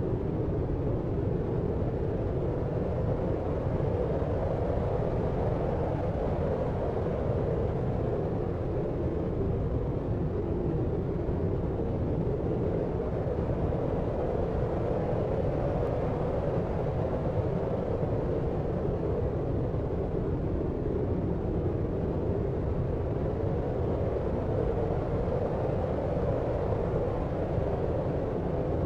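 Deep, steady filtered noise of the brown-noise kind for sleep: a low, even rumbling hiss with most of its weight in the low and low-middle range and little treble, with no separate events.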